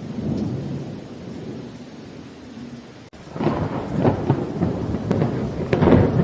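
Thunderstorm: thunder rumbles low over steady rain, then about three seconds in a louder peal breaks out, crackling with several sharp cracks and loudest near the end.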